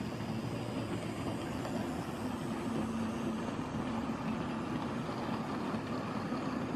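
00 gauge model Stroudley Terrier 0-6-0 tank locomotive running steadily, its electric motor whirring with a low hum as it hauls a rake of four-wheel wagons rolling over the track.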